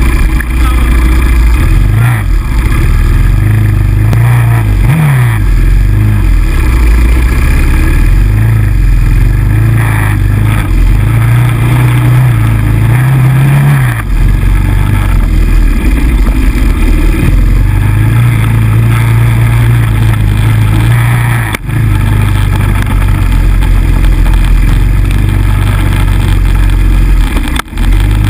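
Quad ATV engine running close and loud on a dirt trail, its pitch rising and falling as the throttle is worked, dipping briefly twice near the end.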